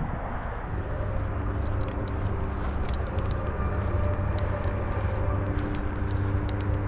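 A motor running steadily with a low, even hum that holds one pitch, starting about a second in, over a low rumble.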